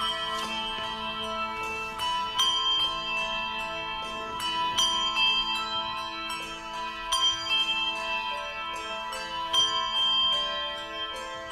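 Handbell ensemble playing: many handbells struck in quick succession, their tones ringing on and overlapping into sustained chords.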